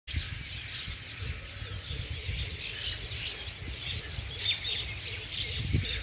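Many small birds chirping and calling together in a busy morning chorus, short overlapping calls with no pause, over a low steady rumble.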